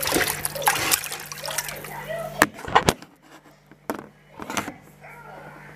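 Kitchen tap water running and splashing over chicken in a bowl in a stainless steel sink while the meat is washed. The water stops about halfway through, followed by a few sharp knocks and handling sounds.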